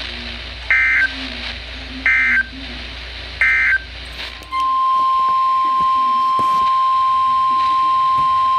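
Three short bursts of EAS/SAME digital data screech, the end-of-message code closing the previous alert; about four and a half seconds in, a loud steady single alert tone of about 1050 Hz, the NOAA Weather Radio warning alarm, begins and holds.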